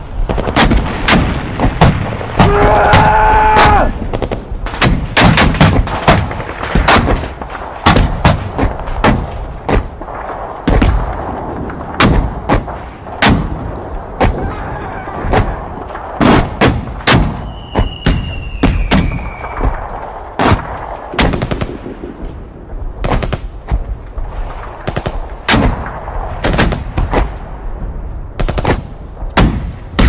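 Battlefield sound effect of rifle and machine-gun fire: sharp shots crack at an irregular pace, sometimes several a second. A short pitched shout-like call comes about three seconds in, and a thin high whistle falls slowly in pitch around eighteen seconds in.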